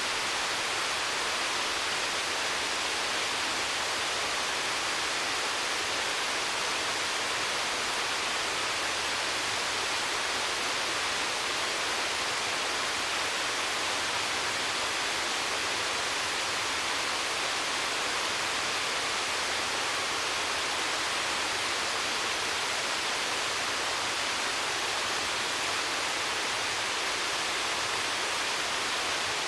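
Waterfall: a steady, even rush of falling water, with no change throughout.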